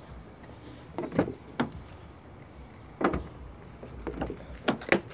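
A car door being handled and opened: a few sharp clicks and knocks from the handle and latch, spread a second or two apart, with the last pair near the end.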